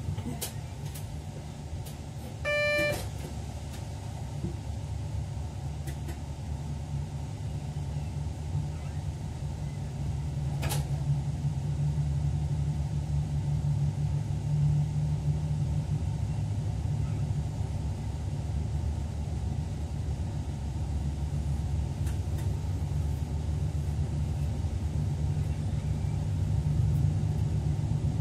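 Electric train running on the line, heard from inside the driver's cab as a steady low rumble that grows gradually louder. A short beep with several overtones sounds about two and a half seconds in, and a single click comes around eleven seconds in.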